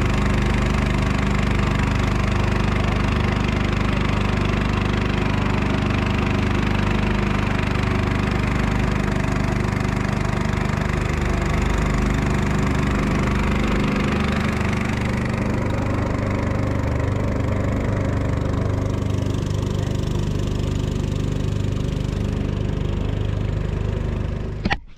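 Small outboard motor of an aluminium boat running steadily at cruising speed, with the rush of the boat through the water. The sound cuts off suddenly near the end.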